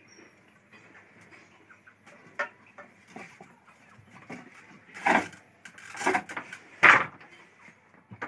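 Wooden handloom being woven on: light clicks and rattles of the loom's parts, with a few louder wooden knocks as the beater packs the weft, the loudest three about a second apart in the second half.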